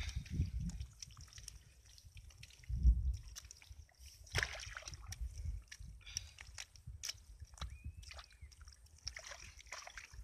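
Hands digging and scooping wet mud, with many short scrapes and wet squelches, and a low thump about three seconds in.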